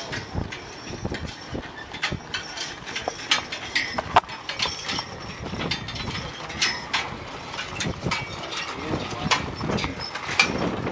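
Team of two mules drawing a wooden covered wagon on a dirt road: hooves clopping, along with irregular clicks and knocks from the harness and wagon.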